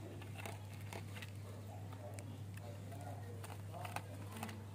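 Kittens eating from a clear plastic tub: irregular small clicks and crunches of chewing, over a steady low hum.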